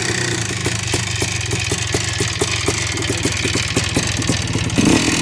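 1991 Yamaha WR500 big-bore single-cylinder two-stroke engine idling with an uneven, popping beat, then a quick blip of the throttle near the end.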